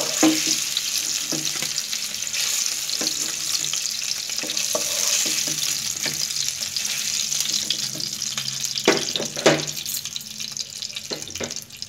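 Hilsa steaks sizzling in hot soybean oil in a frying pan as they are lifted out, a steady hiss with a couple of sharp knocks against the pan about nine seconds in. The sizzle thins out near the end once the pan is empty.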